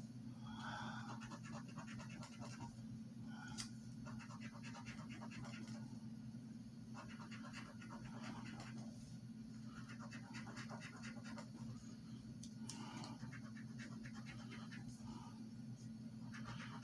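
A coin scraping the silver coating off a scratch-off lottery ticket: faint bouts of rapid back-and-forth strokes, about six of them with short pauses between, over a low steady hum.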